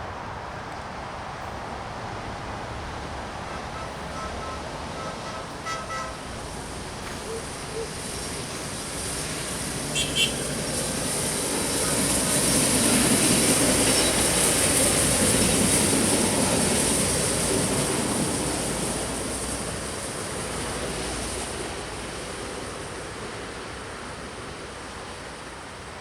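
Hi-rail work vehicles passing along the railroad track. Their noise builds to a peak about halfway through, then fades. Before the peak come a few short horn toots.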